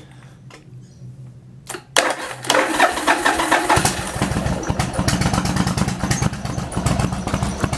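Yamaha Virago XV1100's air-cooled V-twin being started: a click, about two seconds of electric starter cranking, then the engine catches and settles into a steady idle.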